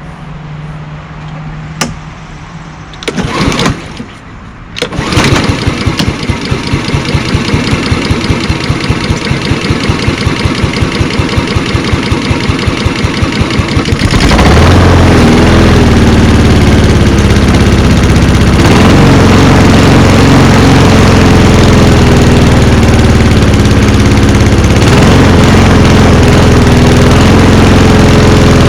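2006 Honda HRX217 mower engine pull-started on full choke. After a couple of cord pulls about three to five seconds in, it catches and runs with a regular pulsing. About fourteen seconds in it gets louder and runs on, its pitch rising and falling in a surge. The surging comes from a broken control lever that lets the loose choke vibrate itself back.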